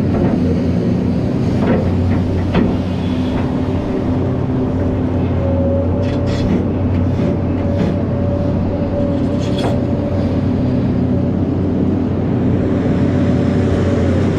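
Heavy diesel engines of a large mining excavator and articulated dump trucks running steadily, with a held whine and several sharp metallic clanks and knocks scattered through.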